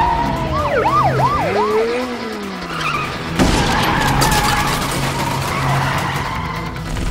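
Film car-chase sound effects: car tyres squealing in a wavering, rising-and-falling pitch during a smoky wheelspin and skid. About three and a half seconds in comes a sudden loud hit, followed by steady engine and road noise.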